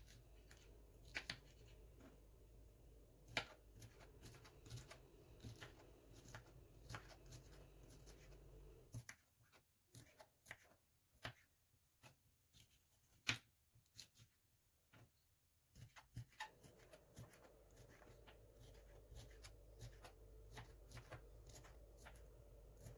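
Kitchen knife cutting a green bell pepper on a wooden chopping board: faint, irregular clicks of the blade meeting the board, with two louder strokes.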